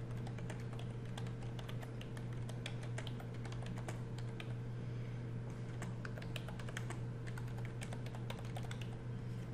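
Typing on a computer keyboard: a quick, continuous run of key clicks, over a steady low hum.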